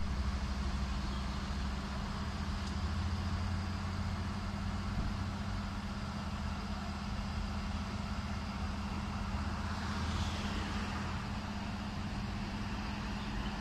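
Fire engine's diesel engine idling steadily, a low even hum.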